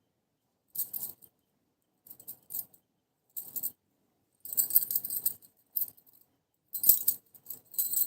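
Small metal jingle shaken in short bursts, about seven of them separated by brief silences, each with a bright, ringing high-pitched sound.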